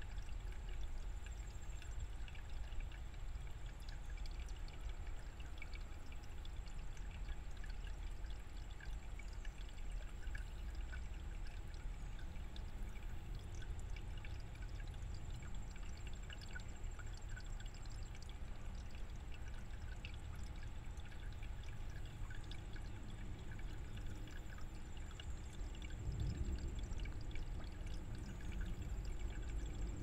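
Shallow stream running over rocks, trickling and burbling with a steady patter of small splashes. The flow gets louder and deeper near the end.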